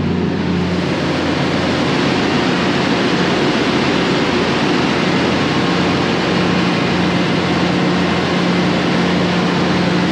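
Steady engine-room noise from the ship's running auxiliary diesel engine and diesel power pack: a constant low hum under a broad, even rush.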